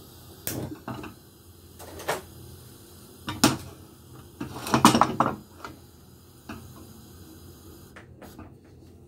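Metal frying pan knocking and scraping on the metal pan supports of a gas hob as it is moved off the burner: a string of separate clanks, the loudest cluster about five seconds in.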